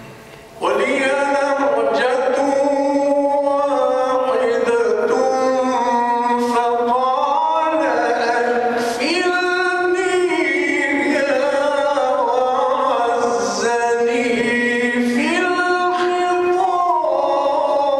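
A male Qur'an reciter (qari) chants a melodic tajweed recitation, holding long notes and winding the pitch through ornamented turns. The voice begins abruptly about half a second in.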